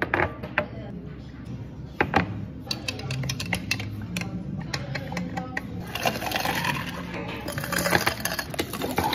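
Glass jars clinking as they are set down on a counter, then ice cubes tipped from a metal scoop clattering into a glass jar over the last few seconds. A steady low hum runs underneath.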